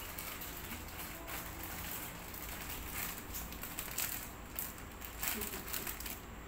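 Scattered soft clicks and rustling from handling, over a low steady rumble.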